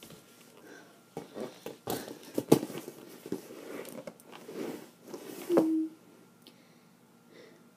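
Close handling noise of a rubber play ball against the microphone: a run of irregular knocks and rubbing, the loudest about two and a half seconds in, then a short squeak about five and a half seconds in.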